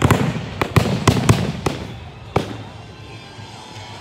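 Aerial fireworks going off: a rapid volley of sharp bangs over the first couple of seconds, then a single bang about two and a half seconds in, after which it dies down.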